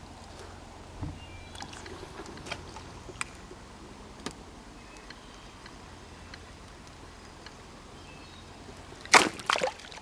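Quiet water and canoe sounds with a few light clicks and knocks from handling, then a short, loud splash of water about nine seconds in as a small largemouth bass is let go over the side of the canoe.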